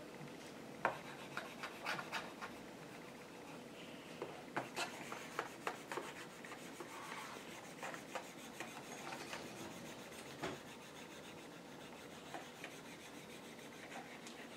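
Plastic styluses scratching and tapping on the screens of two Boogie Board Dashboard LCD writing tablets while drawing: faint scratchy strokes with scattered small clicks.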